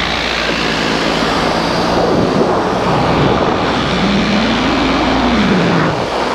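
Air Conception Nitro paramotor's two-stroke engine and propeller running in flight, with airflow noise. About four seconds in, its pitch rises and falls back once.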